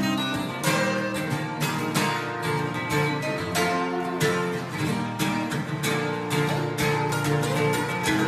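Three acoustic guitars strummed together, playing chords in a steady rhythm.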